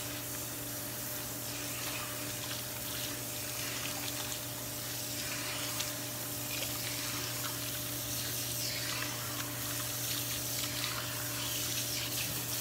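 Water running steadily from a tap or sprayer as hair is rinsed at a sink, with a steady low hum underneath.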